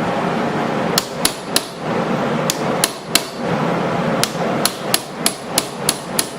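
Hammer striking to drive the pins out of a lockback pocket knife: about a dozen sharp metallic taps with a short high ring, in quick uneven groups starting about a second in.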